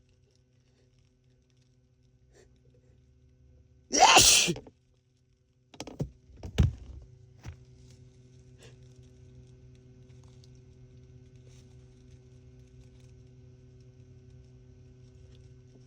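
A man's single loud sneeze about four seconds in, part of a sneezing fit. A few short sharp knocks follow within the next three seconds, then only a faint steady hum.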